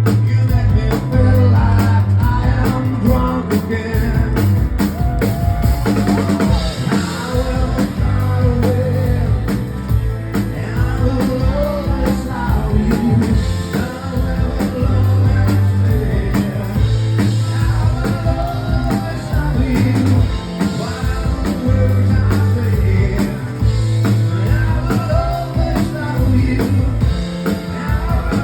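Live rock band playing: drum kit, bass and electric guitar, with a wavering melody line over them, probably a voice singing.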